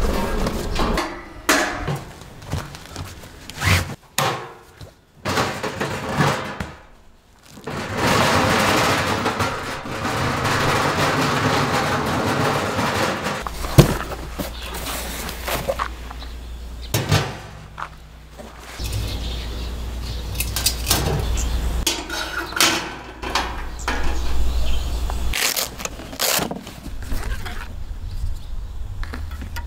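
Unpacking noise: rustling of a fabric carry bag and a cardboard box, with scattered knocks and light clicks as a canvas roll of stainless-steel grill tools is handled. A low rumble runs underneath for several seconds in the middle.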